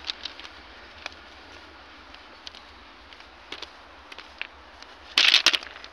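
Quiet open-air background: a faint steady hiss with scattered small ticks, then a loud rough rustle lasting about half a second near the end, which is handling noise on a handheld phone's microphone.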